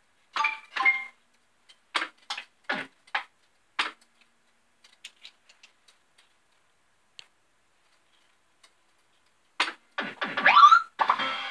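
Family Guy fruit machine making short electronic blips and clicks as its buttons are pressed, with a quiet stretch in the middle. Near the end a rising sound effect plays as the reels spin up and the machine's tune starts.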